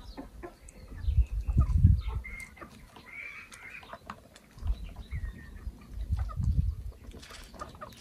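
Chickens clucking, with low rumbles about a second in and again from about five to seven seconds in.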